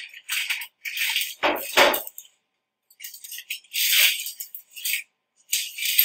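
Sterile plastic packaging being handled and peeled open, crinkling and rustling in short irregular bursts.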